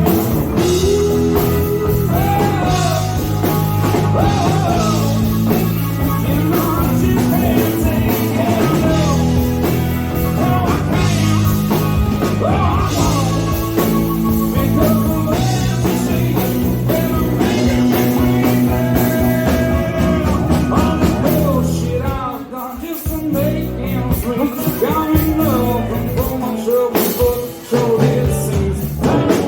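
A live band playing a rock and roll song, with sliding melody lines over a steady bass. The sound briefly drops out twice near the end.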